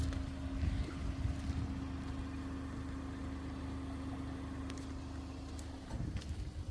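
A machine or engine running steadily with a low hum and a few light clicks, stopping about six seconds in.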